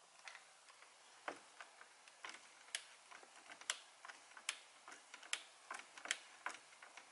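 Sharp, irregular clicks and taps, about one a second, from hands working an aftermarket paddle shifter and its plastic linkage into place behind a steering wheel.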